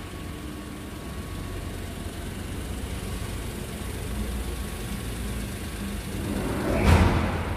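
A Suzuki Cultus's 1.0-litre three-cylinder engine idling steadily, with a louder surge that rises and fades near the end.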